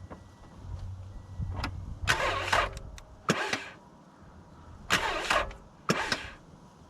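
A car being started off a portable jump starter after its battery went flat: the starter cranks in several short bursts.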